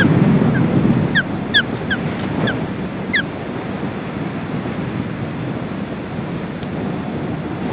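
Ospreys giving short, falling whistled calls, about seven in the first three seconds, over steady wind rumbling on the microphone.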